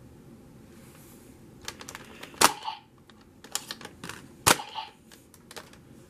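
Hard plastic toy parts being handled: a run of light clicks with two sharp clacks, the first about two and a half seconds in and the second about two seconds later.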